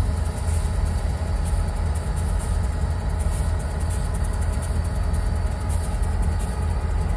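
Diesel-electric freight locomotives idling: a steady, even, low engine rumble.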